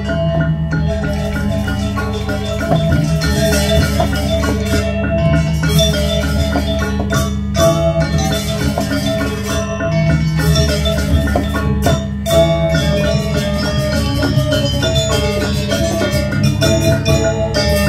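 Balinese gong kebyar gamelan playing: bronze metallophones ringing in fast, dense patterns over steady low gong tones, with a drum and a few sharp accents.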